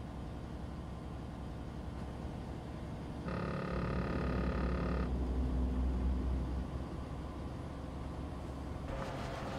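Steady engine and road rumble inside a Freightliner Cascadia's cab at highway speed. About three seconds in, an electronic buzzing tone sounds for just under two seconds, while the low rumble swells briefly.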